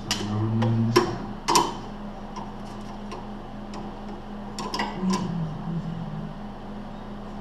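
A handful of sharp clicks and knocks from tools or metal parts being handled: a few in the first two seconds and a quick cluster a little before halfway through, over a steady low hum.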